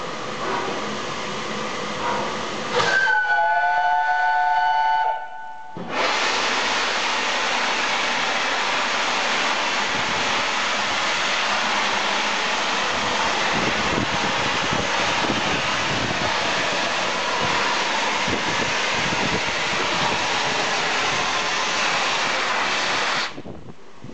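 Steam locomotive 60163 Tornado, an A1 Pacific, sounds its whistle: a single steady blast of several tones together lasting about three seconds. Then a loud, continuous hiss of wet steam sweeps over the platform as the engine starts away. Low, uneven beats sit under the hiss, which drops away suddenly near the end.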